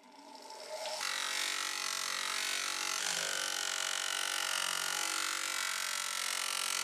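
Bench grinder running, rising in level over the first second, then a steel hammer head held against its spinning abrasive wheel: a steady grinding noise over the motor's hum.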